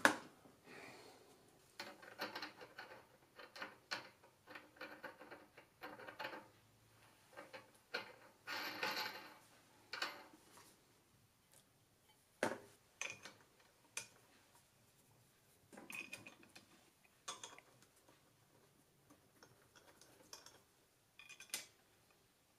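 Small metal parts and tools being handled on a mini milling machine's head: scattered light clicks, taps and clinks, a few with a brief metallic ring, and some short rustling. The sharpest knocks come about twelve seconds in and near the end.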